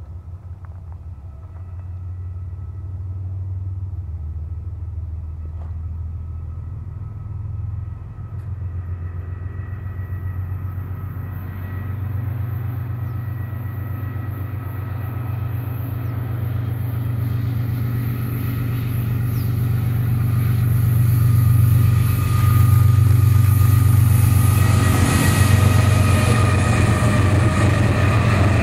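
Diesel locomotives of a freight train approaching, their engines' low rumble growing steadily louder with a steady whine above it.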